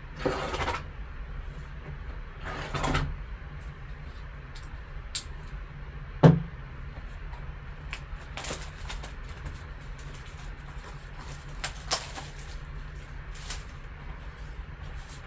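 Plastic shrink wrap being cut and torn off a sealed cardboard trading-card box, with crinkling, cardboard scraping and handling clicks, and one sharp knock about six seconds in as the box is set down on the table.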